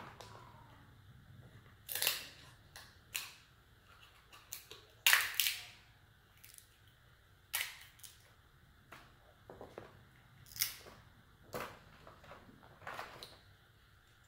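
King crab leg shells being cut with kitchen shears and snapped apart by hand: a string of sharp cracks and snips every second or two, the loudest about five seconds in.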